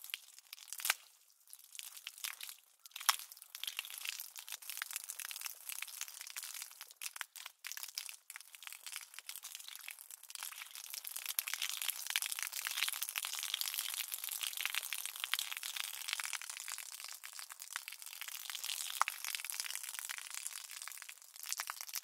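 Water from a garden hose spraying onto concrete: a high, hissing spatter of many tiny irregular splashes. It breaks off briefly a few times in the first seconds, then runs steadier and a little louder from about halfway.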